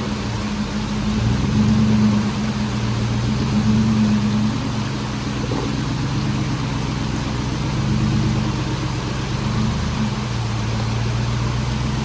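Jeep Wrangler JL's swapped-in 6.1L Hemi V8 running at low revs, the throttle opening and easing off a few times as it crawls.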